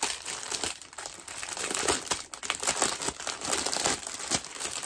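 Plastic packaging crinkling unevenly as it is handled: small bags of diamond painting drills.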